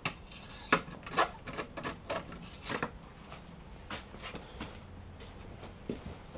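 Tools and parts being handled at a workbench: irregular light knocks, clicks and rustles, with the sharpest knocks about a second in.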